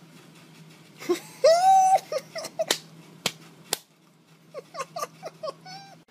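A man's high-pitched, wheezing laugh. It starts with one long squealing note, then turns into a quick run of short giggling bursts near the end. A few sharp clicks come in between.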